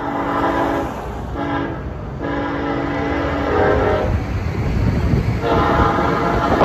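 Kansas City Southern diesel locomotive's air horn sounding a series of long and short blasts, a chord of steady tones, over the low rumble of the train.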